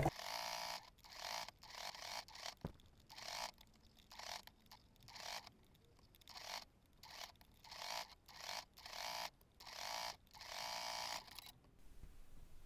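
Domestic electric sewing machine stitching bias tape binding in about a dozen short runs of half a second to a second each, stopping and starting as the fabric is guided. It falls silent near the end.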